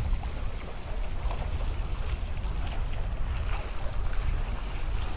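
Wind buffeting the microphone in a steady low rumble, over the rush of water along the hull of a Neel 51 trimaran under sail.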